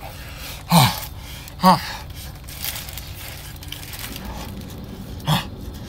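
A man huffing short, voiced "huh" breaths out through his open mouth while chewing a bite of burning-hot sandwich, trying to cool it: two quick huffs in the first two seconds and one more near the end, each dropping in pitch.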